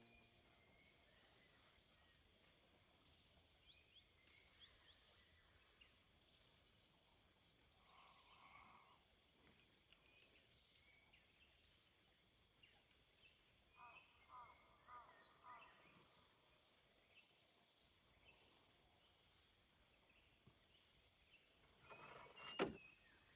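Insects giving a steady, high-pitched drone, with a few short chirping calls in between and a sharp click near the end.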